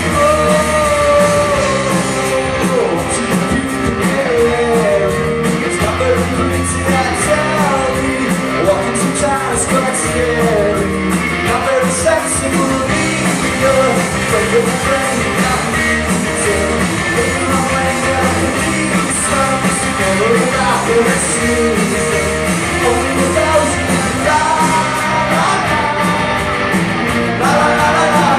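Live rock band playing a cover song: guitars and a steady beat, with a singer.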